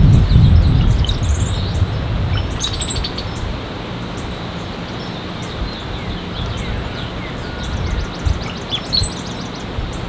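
Wind buffeting the microphone as a low rumble, heaviest in the first couple of seconds, while small birds give a few short high chirps and a quick run of notes about three seconds in, with more chirps near the end.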